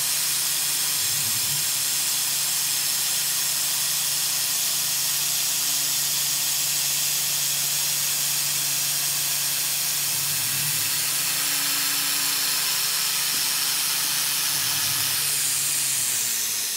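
Mist coolant hissing steadily from the nozzle of a Tormach 440 CNC mill over the low steady hum of the spindle as a corn-cob roughing end mill cuts an aluminium part; the hiss and hum fade near the end.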